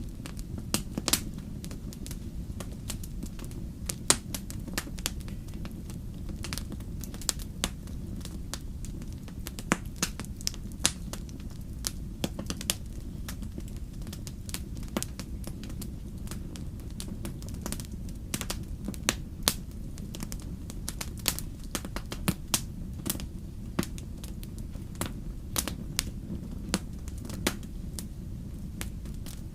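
Wood fire burning in a fireplace, with irregular sharp crackles and pops several times a second over a steady low rumble.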